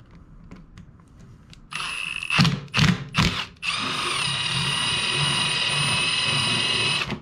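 Cordless drill with a 3/8-inch bit boring through a plastic steering-column shroud, enlarging a pilot hole. A short run of the motor is followed by a few sharp knocks, then a steady whine for about three and a half seconds that stops suddenly once the bit is through.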